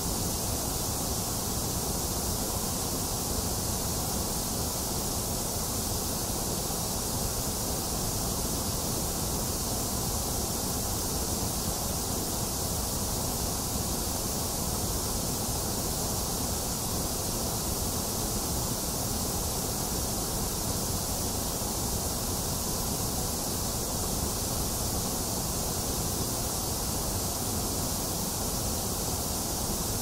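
Steady, unchanging white noise of the kind played to soothe babies to sleep: a low rumble and a high hiss with a weaker middle, no drops, breaks or changes.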